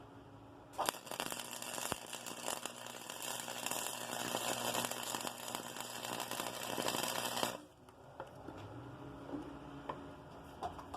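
A flux-core MIG welder's arc crackling as 0.030 flux-core wire is run at high wire speed on the max setting. The arc strikes about a second in and cuts off suddenly about seven and a half seconds in. A faint steady hum carries on before and after the weld.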